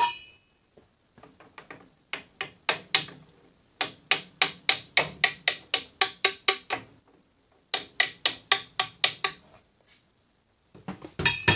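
Rapid, even hammer taps on a brass drift, about four or five a second in three runs, driving the lathe spindle out through the headstock toward the tailstock. Near the end comes one louder metallic clank that rings on briefly.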